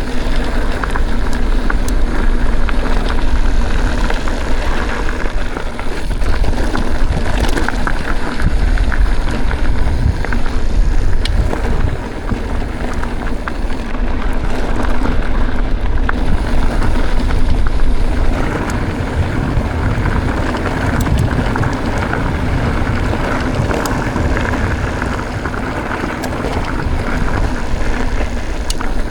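Wind buffeting the microphone over a mountain bike rolling along a dirt trail, with a steady low rumble and scattered clicks and rattles.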